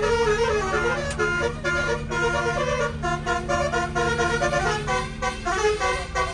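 Bus telolet air horns, twelve roof trumpets driven by a Basuri module, playing a quick melody note after note over the steady low hum of the bus engine.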